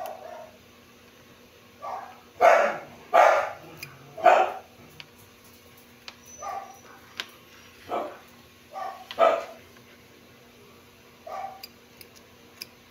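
A dog barking in short bursts: a loud cluster of three barks a couple of seconds in, then scattered single barks. Faint small metallic clicks near the end.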